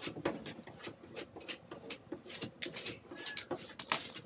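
Quick, irregular scraping and rubbing strokes of a plastic applicator smoothing a vinyl wall graphic flat against the wall to press out air bubbles.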